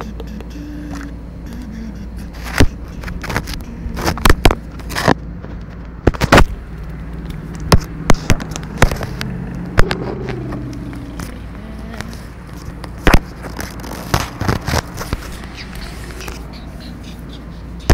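Irregular sharp knocks, clicks and scrapes from a plastic toy playset and its figures being handled close to the microphone, over a steady low rumble.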